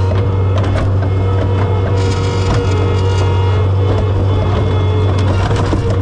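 John Deere 675B skid steer engine running steadily under load, with continuous irregular crunching and cracking of ice being broken.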